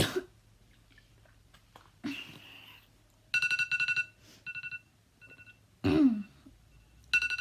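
A person coughing twice, about 2 s in and again near 6 s, mixed with runs of short, rapid electronic beeps on a steady high pitch. A sharp click at the very start.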